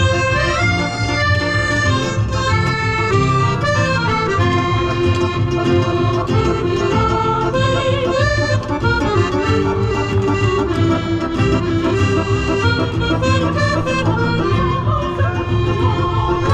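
Live band playing loudly: a fast, busy melody line moving quickly from note to note over a heavy, steady bass.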